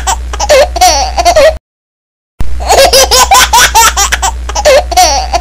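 High-pitched cartoon laughter in quick, rhythmic bursts that cuts off about a second and a half in. After a brief dead silence the same laugh clip starts over from the beginning.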